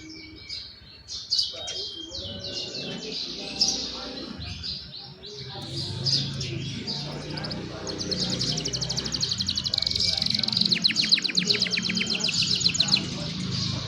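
Young canaries singing: varied chirping phrases, then a long, fast trill of rapidly repeated notes from about eight seconds in.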